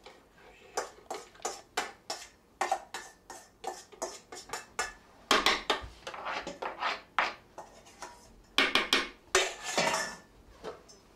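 Metal spoon scraping and clinking against a stainless steel mixing bowl and the plastic bowl of a small food processor as soft roasted butternut squash is scooped in: a run of sharp clinks and scrapes, loudest about five seconds in and again near nine seconds.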